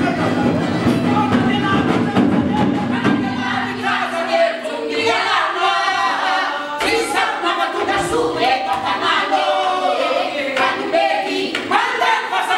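Live Malagasy traditional music: male and female voices singing together over fiddle and drum. About four seconds in, the low accompaniment drops away, leaving mainly the singing voices with occasional drum strokes.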